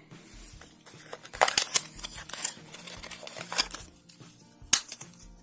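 Mukaltin tablet packaging being handled: a string of sharp crinkles and clicks, the loudest about a second and a half in and again near the end.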